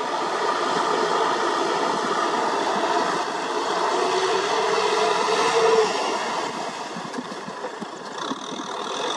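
Kubota M6040 SU tractor's diesel engine running steadily under load as it works through deep mud with its rear rotary tiller. It is a little louder about five seconds in and eases off about a second later.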